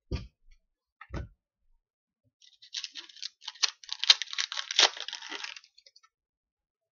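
Foil trading-card pack being torn open and crinkled for about three seconds, after two soft knocks of handling.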